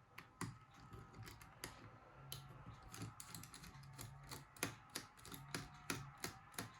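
Small precision screwdriver clicking and ticking as the tiny outer screws of a Nokia E71 are backed out of its metal frame. The clicks are faint and come in an irregular run.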